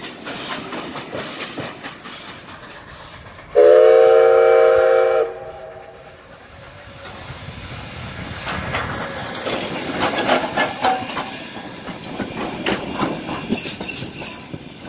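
Steam locomotive whistle sounding one loud chord for about a second and a half, a few seconds in, over the clickety-clack of coach wheels on the rails. Afterwards the locomotive passes close by, its running gear clanking and steam hissing.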